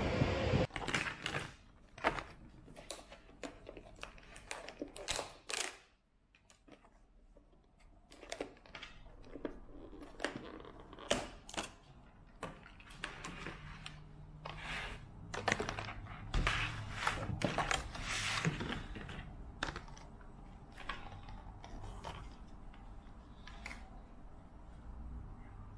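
A clear plastic clamshell food container being handled and its lid pried off: a run of sharp, irregular plastic clicks and crackles with short pauses. A moment of wind noise cuts off at the very start.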